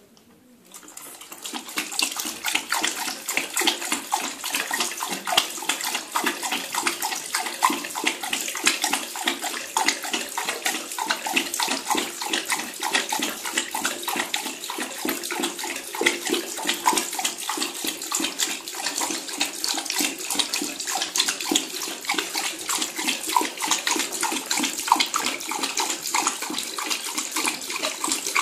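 Bidet tap running into a ceramic bowl, starting about a second in. The stream splashes unevenly as a boxer dog laps at it.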